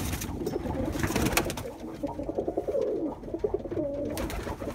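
Male roller pigeons cooing repeatedly in low, warbling phrases, with a few sharp taps about a second in and near the end.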